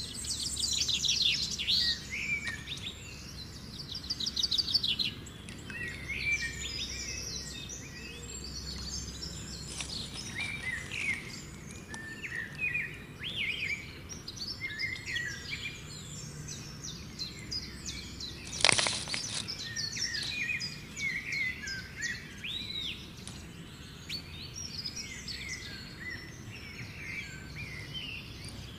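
Many small birds chirping and trilling over a low, steady outdoor background noise, with one short, loud burst of noise about two-thirds of the way through.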